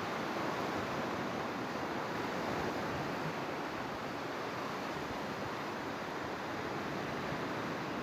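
Small Black Sea waves breaking and washing up over a sandy beach, a steady hiss of surf.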